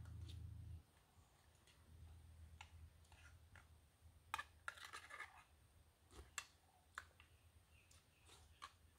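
Near silence broken by faint scattered clicks and a short run of scraping clicks about five seconds in: a spoon against a small metal camp cup as someone eats. A brief low rumble sits in the first second.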